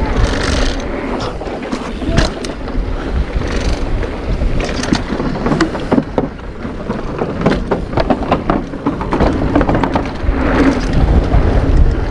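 Mountain bike riding down a dirt bike-park trail, a Specialized Status 160: a steady rumble of wind and tyres on dirt, with frequent sharp clicks and knocks from the bike rattling over bumps.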